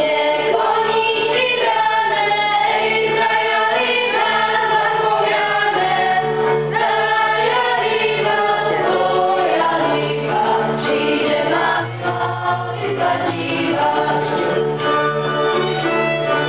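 A group singing a folk song in several voices, with fiddles and a bass holding long low notes that change about three quarters of the way through.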